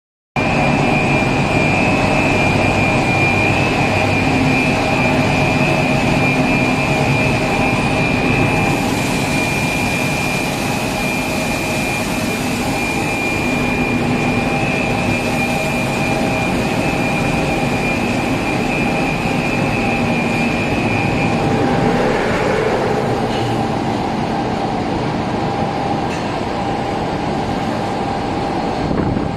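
Automotive glass tempering furnace line running: a loud, steady mechanical hum with several whining tones on top. The highest whine stops about two-thirds of the way through.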